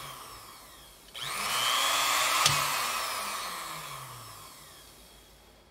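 Sewing-machine universal motor running on AC with no load: switched on by its foot pedal about a second in, it spins up quickly to a whine. A click follows about a second and a half later, then the motor winds down, its whine falling in pitch and fading over the next few seconds.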